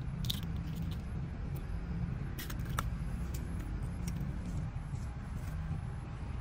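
Scattered small sharp clicks and snips from hand work, about a dozen spread unevenly, the loudest a little under three seconds in, over a steady low rumble.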